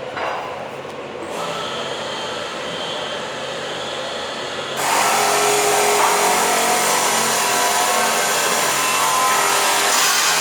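A power tool runs with a steady, noisy hiss. It gets suddenly much louder about halfway through and stays loud.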